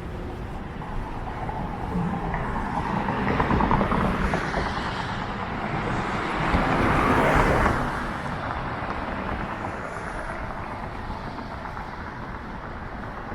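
City street traffic: cars passing, the loudest going by about seven seconds in, over a constant low rumble of wind on the microphone.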